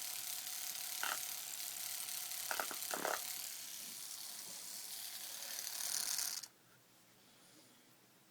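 Homemade tattoo machine, made with a mechanical pencil and a guitar-string needle, buzzing steadily in a high pitch with a few light clicks. It cuts off suddenly about two-thirds of the way through.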